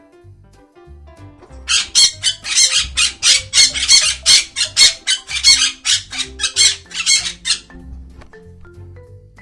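Parrot squawking: a rapid run of short, harsh calls, about three a second, starting a couple of seconds in and stopping after about six seconds, over soft background music.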